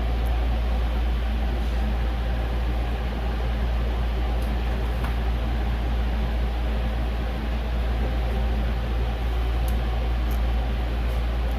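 A steady mechanical drone with a strong low hum, unchanging throughout.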